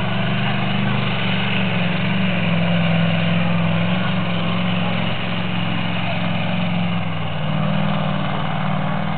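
Competition pulling tractor's engine running hard under load through a pull, a loud steady drone whose pitch drops a little about seven seconds in. The ten-cylinder engine is running on only eight cylinders.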